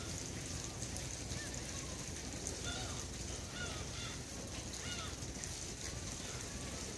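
Seabirds, likely gulls, giving a run of short, arched calls, several in a row a few seconds in, over a steady background hiss and low rumble.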